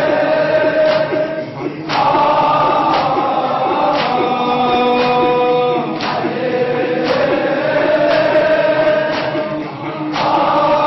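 Male voices chanting a Shia latmiya lament in Arabic into microphones, sounding like a choir, over a steady slap about once a second from mourners beating their chests in time.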